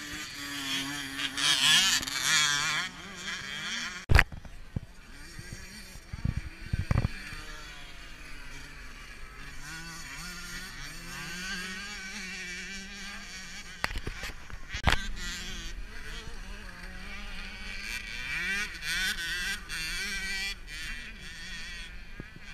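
Small two-stroke motocross bikes racing, engines revving up and down through the gears; loudest as two bikes pass close about one to three seconds in, then a thin, distant whine rising and falling as they ride around the track. Several short thumps break in along the way.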